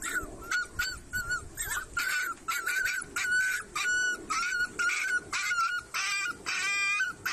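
Rottweiler puppies yelping and whimpering: a quick run of short, high-pitched cries, about two a second, with a couple of longer, wavering whines near the end.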